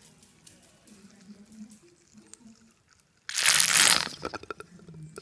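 A plastic dog travel water bottle and its bowl of water being handled. About three seconds in there is a sudden loud rush of noise lasting under a second, followed by a few faint clicks.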